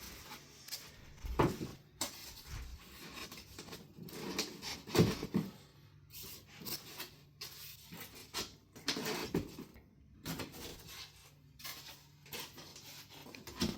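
Cardboard panels scraping, rustling and knocking as truss pieces are slid into slots in a cardboard tabletop, with a few sharper knocks, the strongest about five seconds in.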